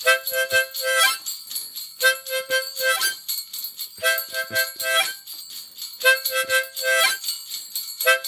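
Outro music: jingle bells shaking continuously under a short pitched figure that repeats about every two seconds.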